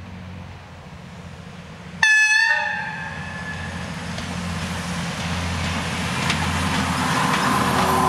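Uerdinger VT 98 railbus (the 'Ulmer Spatz') with its diesel engines running as it approaches. It gives one short horn blast about two seconds in, then its engine and running noise grow louder as it draws near and passes.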